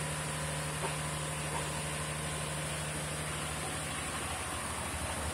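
Steady hum of running mill machinery in a small sugarcane-crushing plant, with a low steady tone that drops away about four seconds in.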